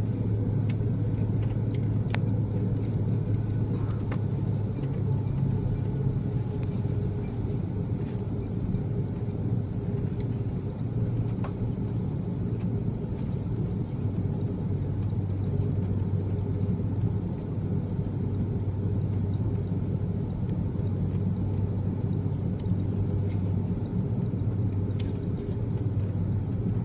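Inside an airliner cabin while taxiing: the jet engines run at low taxi power under a steady low rumble and hum, with a few faint clicks.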